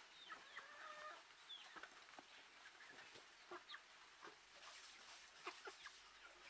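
A flock of chickens clucking faintly in short, scattered calls.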